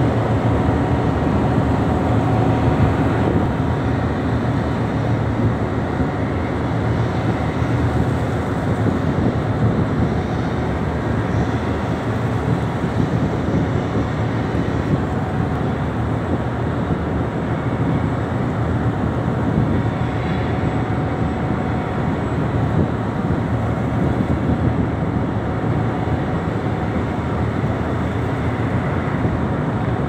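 Boat engine running steadily, a constant low drone that does not change.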